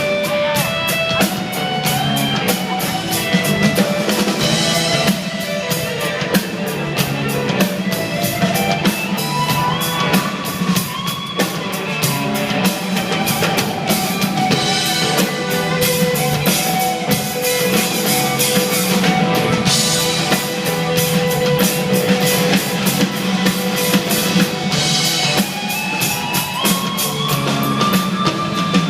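Live psychedelic rock band playing an instrumental passage: a steady drum-kit beat under guitar, with long held melody notes that slide up and down in pitch.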